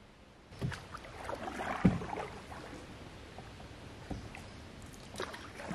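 Canoe being paddled: a wooden paddle dipping and pulling through the water with small splashes and drips, and a few knocks against the canoe, the loudest a thump about two seconds in.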